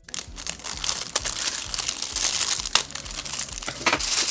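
Clear plastic wrapping crinkling as hands unwrap a small plastic slime container, a steady rustle broken by a few sharper crackles.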